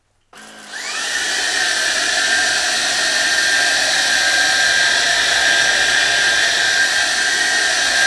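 Hoover H-Free 500 cordless stick vacuum switched on about a third of a second in, its motor spinning up within a second to a steady high whine over a loud rushing hiss, running on carpet with its motorised brush bar on.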